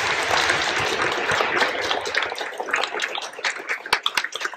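Audience applauding, dense clapping that thins out to scattered claps near the end.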